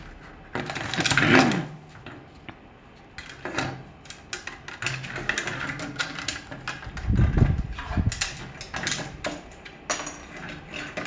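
A sulphur-crested cockatoo's beak clicking and knocking on a plastic Lego boat hull as it bites and drags it over a wooden table, with plastic scraping and tapping on wood. There is a louder scrape about a second in and a dull thump past the middle.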